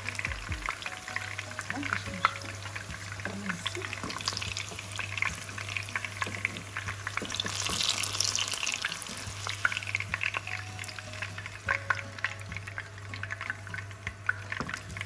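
Long green peppers frying in hot oil in a pan, the oil sizzling and crackling with frequent sharp pops as wooden spoons turn them. The sizzle grows brighter about halfway. A steady low hum runs underneath.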